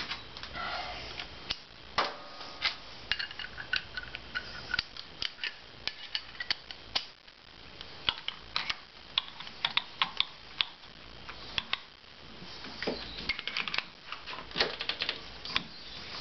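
Irregular metallic clicks and clinks of a socket on an extension bar being fitted to a Harley-Davidson clutch hub nut and turned by hand, running the left-hand-threaded nut down onto the mainshaft.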